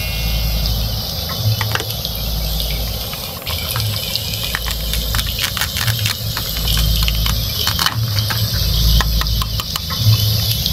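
Plastic toy food being handled and cut apart with a toy knife: a run of sharp clicks, crackles and rattles, thickest in the middle, over a low uneven rumble.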